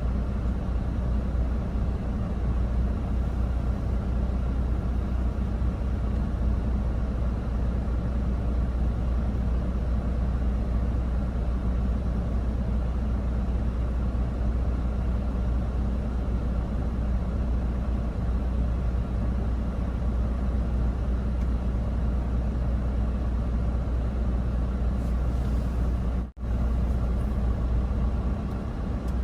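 Steady low drone of a truck's engine and road noise while driving. It cuts out briefly near the end.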